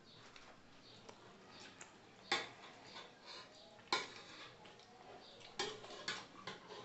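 Cutlery and plates clinking during a meal: two sharp clinks about two and four seconds in, then a few more near the end.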